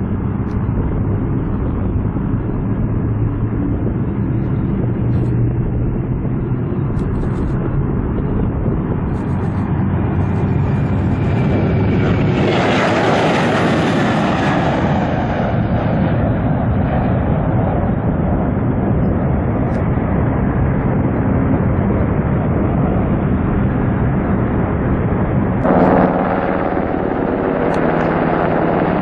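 Boeing E-7 Wedgetail's twin CFM56 turbofans on the takeoff run and climb-out, the jet noise swelling to a peak as the aircraft passes close about halfway through, then easing off. Near the end the sound switches abruptly to a Sikorsky HH-60G helicopter's rotor and turbine.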